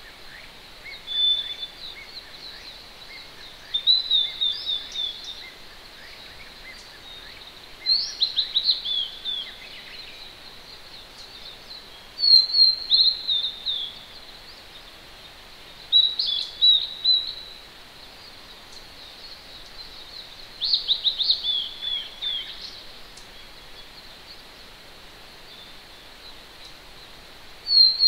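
A wild songbird singing short phrases of quick, high, descending notes about every four seconds, with fainter chirps from another bird in the first half. A steady hiss from a distant mountain stream runs underneath.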